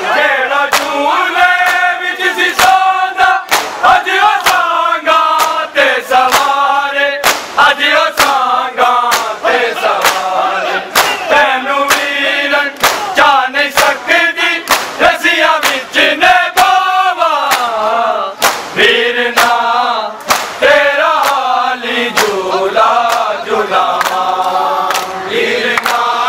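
Male voices chanting a Muharram lament (nauha), over rhythmic open-hand chest-beating (matam) by a crowd of mourners, with sharp slaps at about two a second.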